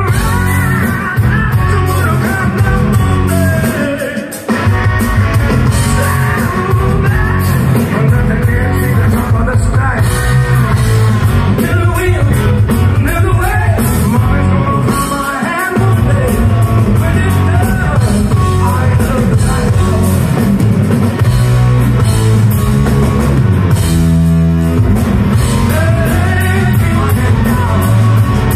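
Live hard rock band playing at full volume: a lead singer over distorted electric guitars, bass and a drum kit. The band drops out briefly about four seconds in, then comes back in.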